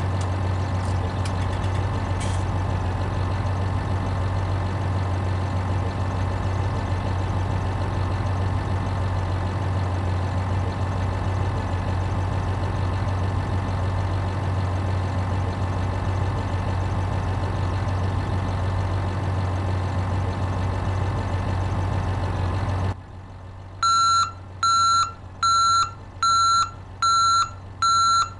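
Steady idling engine sound of a toy construction vehicle that cuts off abruptly about 23 seconds in. A reversing alarm follows, beeping evenly about once a second.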